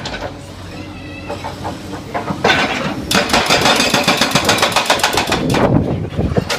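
Backhoe excavator's hydraulic hammer breaker pounding in rapid, even blows. It pauses for the first couple of seconds while the engine runs, then resumes about three seconds in and stops near the end.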